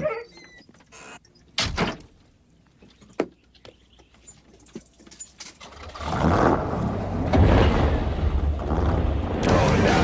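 A car door shuts with a sharp slam about two seconds in, among small clicks and knocks. About six seconds in, a car engine comes in loud and keeps running.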